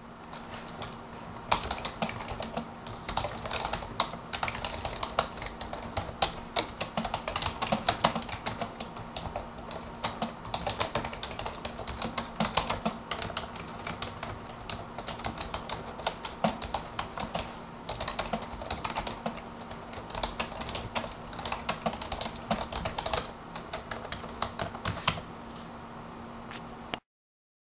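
Typing on the membrane keys of a Roccat Valo gaming keyboard: a long, irregular run of quick key clicks over a faint steady hum, cutting off abruptly near the end.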